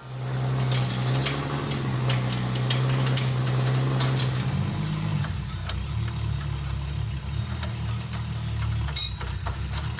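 Electric motor of a car lift running steadily as the front of the car is raised, with light clicking throughout and a sharper click about nine seconds in. The motor's hum drops in pitch about halfway through.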